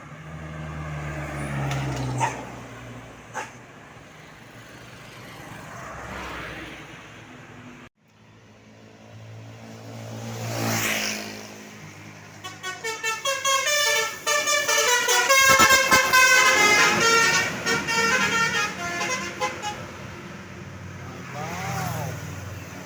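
A tour bus's 'telolet' (basuri) multi-tone musical horn playing a melody of stepping pitches: rapid short toots starting a little past the middle, then held notes for several seconds. Before and after it, road vehicles pass by.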